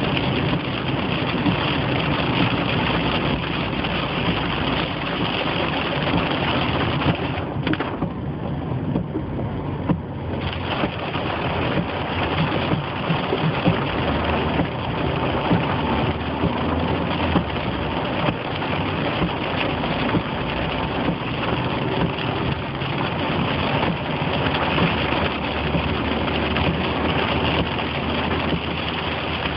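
A dense hiss of heavy rain on a moving car and of tyres through standing water, heard from inside the cabin under the engine's low running. For a couple of seconds about eight seconds in, the hiss turns duller.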